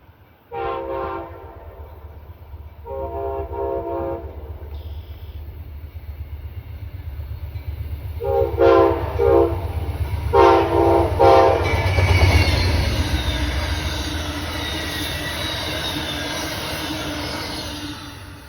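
Locomotive chord horn blowing a series of blasts, the later ones broken into short pulses, as a train approaches. The train then passes with a deep rumble and a hissing wheel-and-rail noise that carries some high squeal, fading toward the end.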